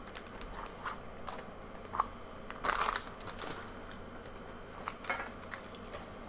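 Foil booster pack wrapper rustling and crinkling in the hands, with a louder burst of crinkling about two and a half seconds in and scattered light clicks.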